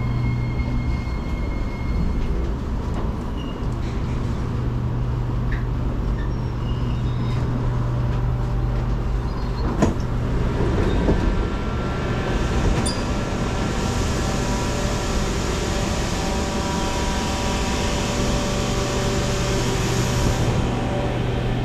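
Singapore MRT train standing at a station platform, its equipment giving a steady low hum. There is a sharp click about ten seconds in. About three seconds later a broad rushing noise starts and runs on, then cuts off sharply near the end.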